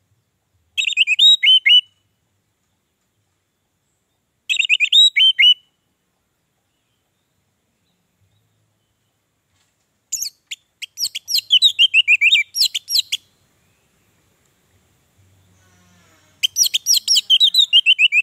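Male orange-headed thrush (anis merah) singing: four bursts of rapid, varied whistled notes, two short phrases of about a second followed by two longer ones of two to three seconds, with pauses between.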